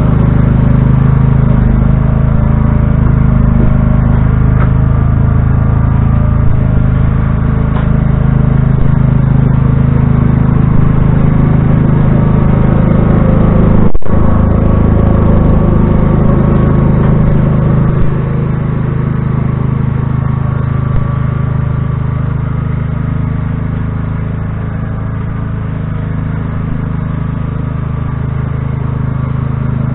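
Riding lawn tractor engine running steadily at working throttle while it pushes snow with a plow blade. It gets a little quieter about eighteen seconds in.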